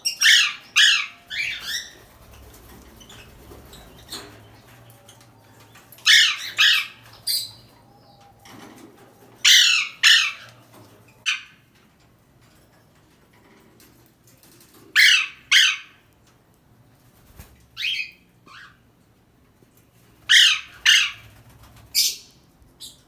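Parrot giving loud, harsh squawks in clusters of two or three calls, each cluster a few seconds apart.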